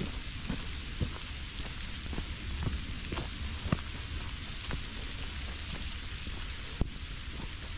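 Steady hiss of rain with a low rumble underneath and scattered light taps, the sharpest a click near the end.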